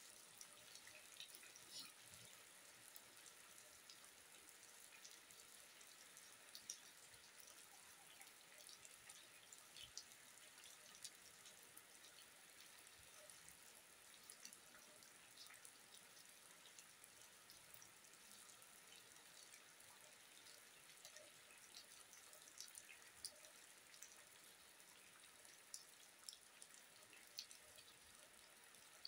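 Faint steady rain: a soft hiss with many scattered drips and drop ticks.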